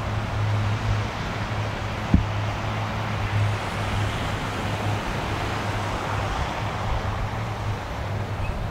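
Twin-turboprop airliner's engines running with propellers turning, a steady low hum over a broad rushing drone. A single sharp click about two seconds in.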